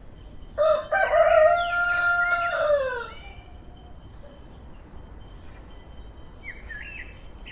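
A rooster crowing once: one long call of about two and a half seconds that drops in pitch at the end. Faint small-bird chirps follow near the end.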